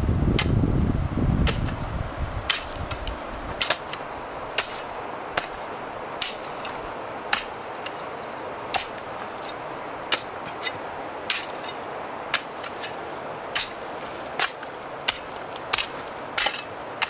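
Regular sharp knocks, about one a second, like a hand tool repeatedly striking, over a steady background hiss, with a low rumble in the first couple of seconds.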